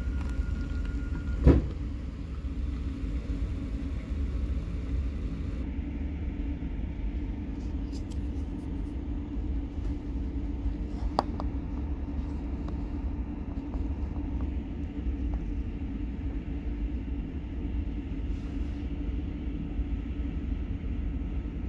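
A steady low rumble throughout, with a sharp click about a second and a half in and another, fainter one about eleven seconds in.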